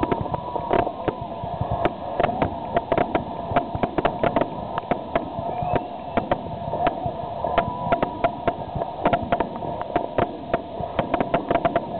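Aerial fireworks show: shells bursting in quick succession, many sharp bangs a second, over a steady background din.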